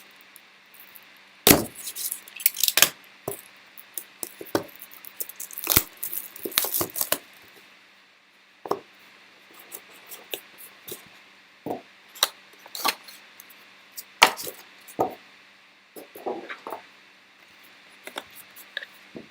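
A sealed trading card box being opened and its contents handled: scattered sharp taps, clicks and crinkles of cardboard and wrapper, busiest a few seconds in.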